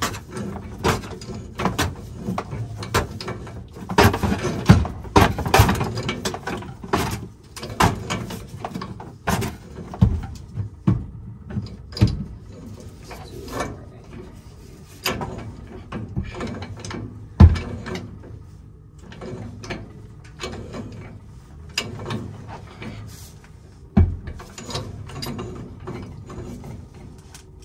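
Threaded black-iron steam pipe fitting being turned in and tightened with a wrench: irregular metal clicks, scrapes and clanks, with two sharper knocks in the second half.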